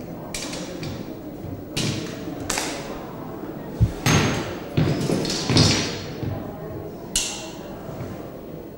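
Hexagonal wire netting rustling and scraping in a series of short swishes as a person shifts underneath it on a floor, with one dull thud just before the loudest swishes.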